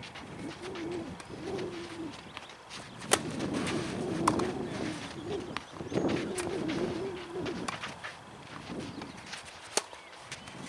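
A few sharp knocks of a tennis ball being struck on a clay court, the loudest about three seconds in and another near the end. Low, wavering cooing calls of a bird are heard between them.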